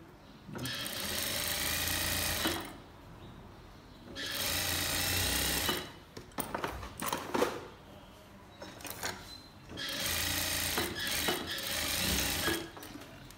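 Sewing machine running in three short runs of about two seconds each, stitching, with clicks and rustles of the fabric being handled between the runs.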